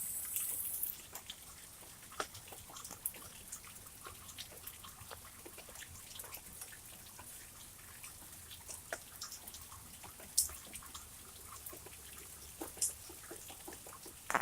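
Heavy rain falling, with scattered drops ticking and dripping and a few louder drips.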